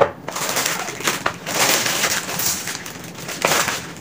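A 500-piece cardboard jigsaw puzzle's pieces being tipped out of their box and foil wrapping onto a table: a dense rustle and clatter of many small pieces, swelling louder twice.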